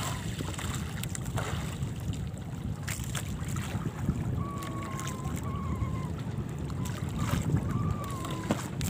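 Small outrigger fishing boat's engine running low and steady, with wind on the microphone and sea water around the hull. A few faint short tones come through around the middle.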